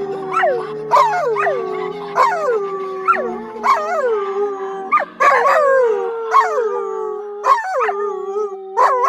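Dogs howling along to music: each howl starts with a sharp falling cry and settles into a long held note, a new one starting about every second, with quiet backing music underneath.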